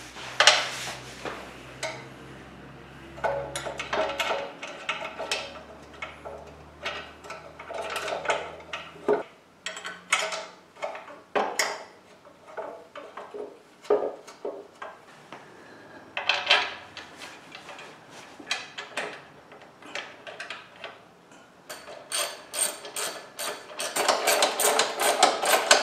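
Metal clanks, knocks and scrapes as a metal motorcycle skid plate is lifted into place under the engine and lined up with its mounting bolts. Near the end come quick runs of clicking from a ratchet wrench as the bolts are turned.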